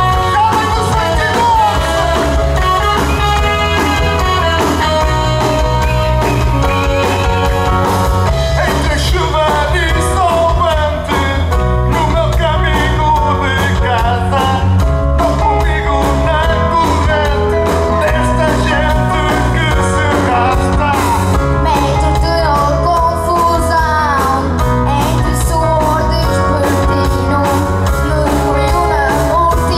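Live pop-rock band playing a song at full volume: electric guitars, bass guitar and keyboard with a steady bass line, under a boy's and a man's voices singing into microphones.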